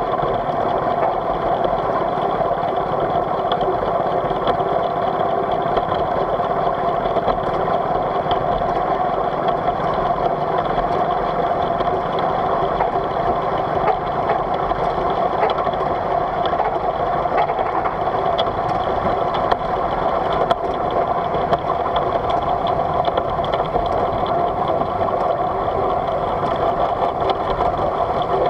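Polly V miniature live-steam locomotive running steadily along its track, heard close up from the driving position: an even, unbroken mechanical running noise.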